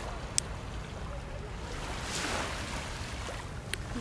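Wind rumbling on a phone microphone over small waves washing in at the water's edge, with a wash of surf swelling about halfway through. Two sharp clicks, one just after the start and one near the end.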